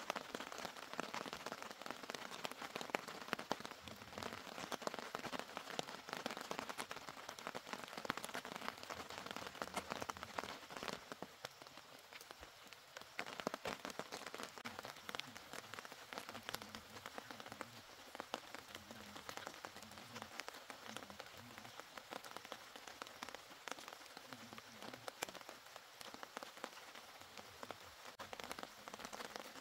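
Steady rain falling, a dense spatter of separate drop hits, easing slightly about a third of the way through.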